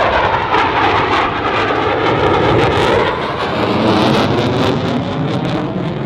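Loud jet noise from a Blue Angels twin-engine F/A-18 Hornet passing by, its tone sweeping down and back up as it goes past.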